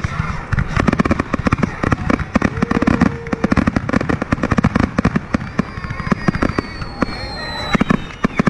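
Aerial firework shells bursting in a dense, rapid barrage of booms and crackling reports, thinning out over the last couple of seconds.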